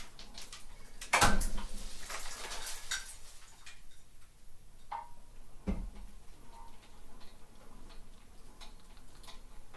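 Rapid light metallic clicking of a hoist lifting a car trailer, with two loud metal clanks, one about a second in and one near six seconds in.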